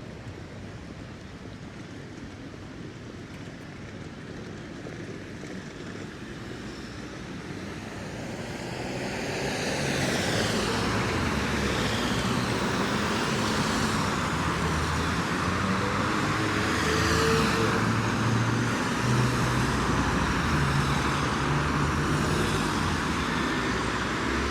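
Street traffic with a motor vehicle drawing close: fairly quiet for the first third, then growing louder from about eight seconds in and staying loud, with a low engine note that rises toward the end.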